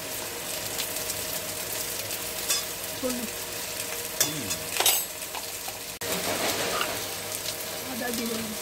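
Potato and pointed gourd pieces frying in oil in a steel kadai, a steady sizzle, with a sharp metal click from the spatula or spoon about five seconds in.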